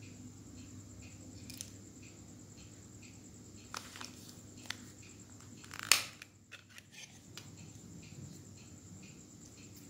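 Plastic casing of a Samsung SGH-T249 slider phone being handled as its back cover is taken off: a few small clicks, then one sharp snap about six seconds in, followed by a couple of light plastic ticks.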